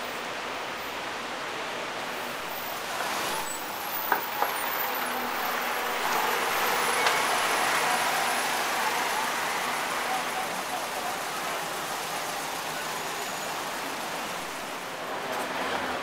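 Busy street ambience: steady road traffic noise with cars passing and voices in the background. It swells louder around six to ten seconds in. Two sharp clicks sound just after four seconds in.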